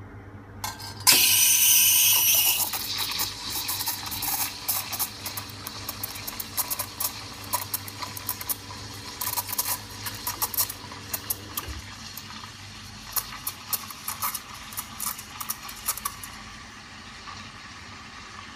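Espresso machine steam wand opening with a loud hiss, then steaming milk in a steel pitcher: a hiss full of crackling and sputtering as air is drawn into the milk, settling into a quieter, smoother hiss near the end as the milk is textured.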